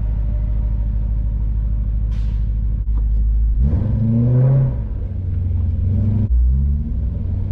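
Car engine idling steadily, then accelerating about three and a half seconds in, its pitch rising, dropping at a gear change and rising again.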